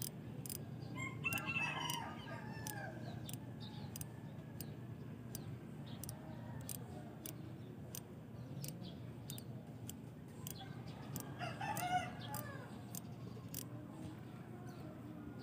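A rooster crowing twice, once about a second in and again about eleven seconds in, each crow lasting about a second and a half.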